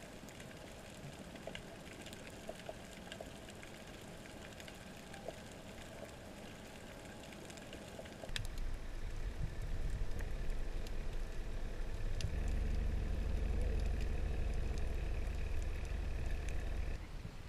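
Muffled underwater noise heard through a camera's waterproof housing: a faint hiss with small clicks, then a loud low rumble that starts suddenly about halfway through, grows louder a few seconds later and drops away near the end.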